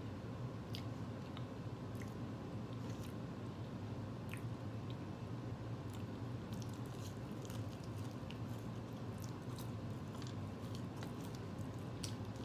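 A person chewing a mouthful of burger and fries: soft, scattered mouth clicks over a steady low hum.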